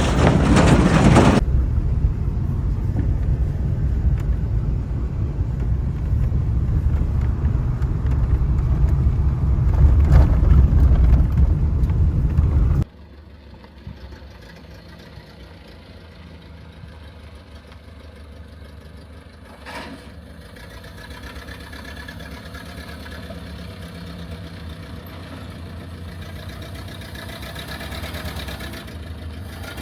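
The 1929 Ford Model A's four-cylinder engine running on an off-road trail: a loud, low rumble that cuts off suddenly about a third of the way in, followed by a much quieter, steady engine note.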